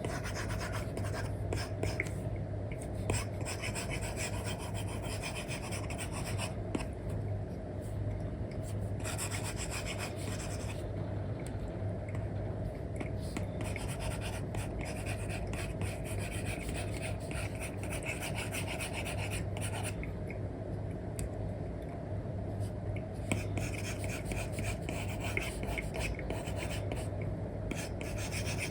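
Stylus nib rubbing and scratching across a paper-like screen film on an iPad, in runs of strokes broken by several short pauses, over a steady low hum.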